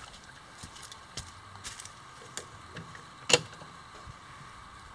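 A bent metal bearing bracket being fitted against a mounting plate: a few light knocks and one sharp click a little over three seconds in, over a faint steady hum.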